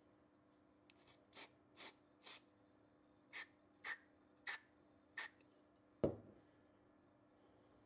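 Aerosol spray can giving eight short puffs into an airgun regulator, four then four, followed by a single sharp knock about six seconds in.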